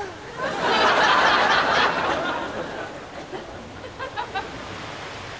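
Studio audience laughter that swells about half a second in and dies away over a couple of seconds, with a few chuckles near the end, over the splashing of pool water.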